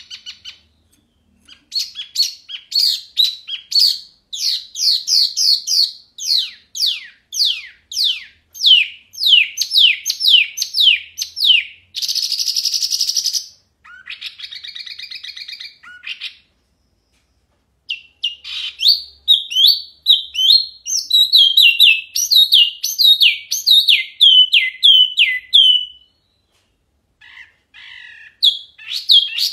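A caged wambi mini songbird singing loud and clear: long runs of quick descending whistled notes, broken about halfway by two harsh, buzzy rattling phrases and a brief pause, then more fast descending notes with another short pause near the end.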